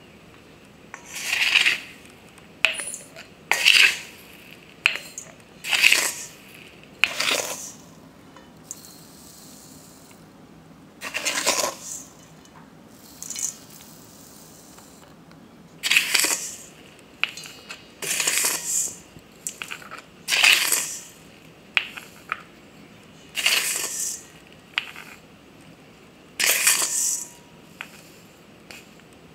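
Arugula seed being scooped from a stainless-steel bowl and poured into a small glass jar: a run of short gritty swishes and rattles of seed against metal and glass, one every second or two, with a pause of a few seconds about a third of the way in.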